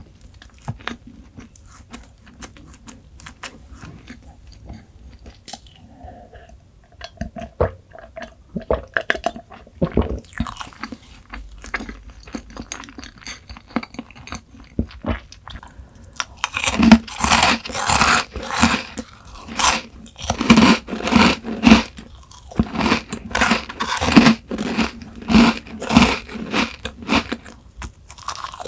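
Close-miked eating: soft mouth clicks and quiet chewing at first, then, a little past halfway, loud crisp crunching chews in a steady rhythm of about two a second.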